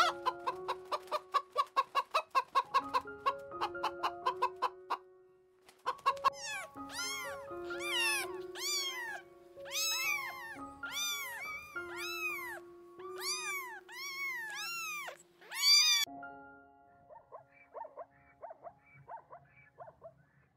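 Background music with held notes. Over it, farmyard fowl make a quick run of clucking calls for the first few seconds, then a cat gives repeated short meows, each rising and falling, in clusters of two to four, until about two-thirds of the way through. After that only fainter scattered animal sounds remain.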